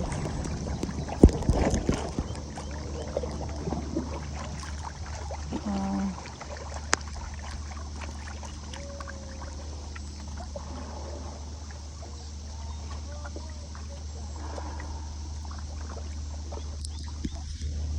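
A small boat going down a fast-flowing river: steady rushing of the water around it, with a few sharp knocks about a second in.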